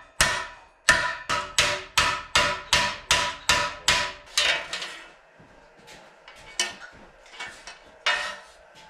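Hammer blows on a steel car sub rail, flattening and straightening the metal. There is a fast run of about a dozen ringing strikes, roughly three a second, then a few lighter, scattered taps.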